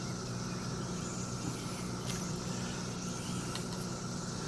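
Steady low background hum with a faint steady tone above it, and a few faint light clicks.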